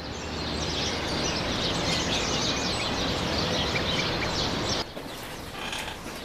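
Many birds chirping together over a steady outdoor noise, cutting off abruptly about five seconds in to a quieter ambience.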